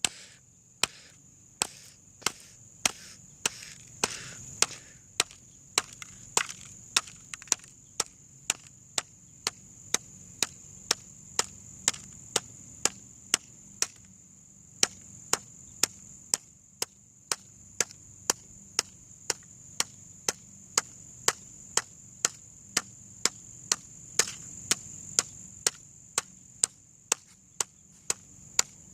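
Repeated sharp strikes, about two a second in an even rhythm, as something is beaten, with a steady high-pitched tone underneath.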